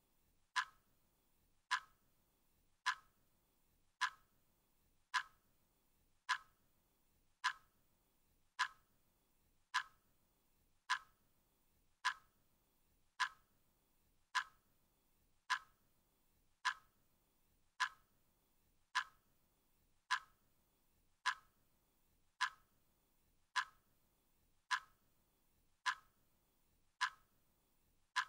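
Clock ticking at a steady, slightly slower than one-per-second pace: single sharp ticks, each with a brief ring.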